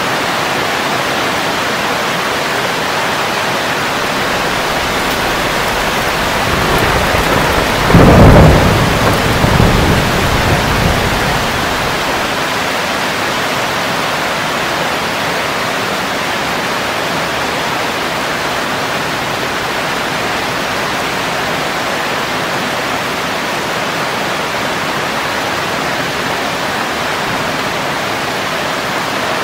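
Steady heavy rain with a thunderclap: the thunder builds about six seconds in, cracks loudest around eight seconds and rolls away over the next few seconds, after which the rain alone continues.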